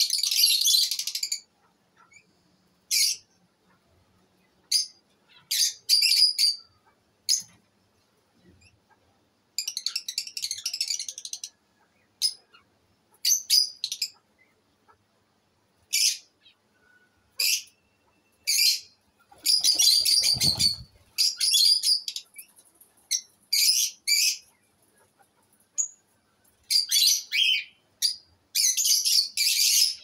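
Lovebirds chirping in repeated shrill bursts, some single sharp calls and some longer chattering runs, with short quiet gaps between them. A brief low rumble comes about two-thirds of the way through.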